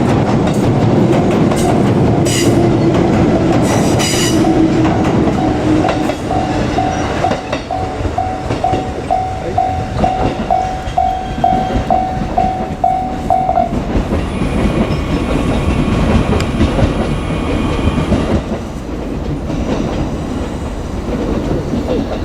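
JR Kyushu 787-series electric train passing over a level crossing, with loud rumble and wheel clatter. The crossing's warning bell rings in an even pulse about twice a second and stops about 14 seconds in.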